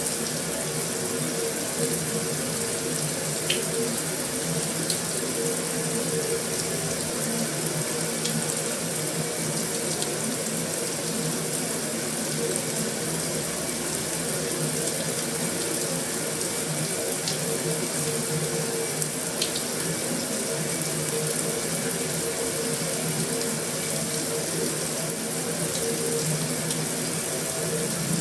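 Heavy rain falling steadily on a metal roof, a dense even patter with a few sharper single ticks now and then.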